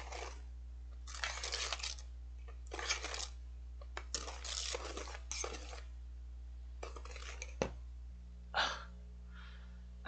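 A wire whisk beating thick dalgona coffee foam (instant coffee, sugar and water) in a stainless steel bowl by hand, in several short spells of swishing and scraping against the metal with brief pauses between them.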